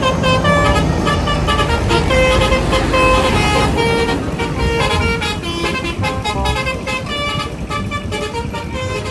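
Bus telolet horn (a Basuri multi-trumpet horn) playing a rapid tune of short notes at changing pitches, over the low rumble of the bus's engine.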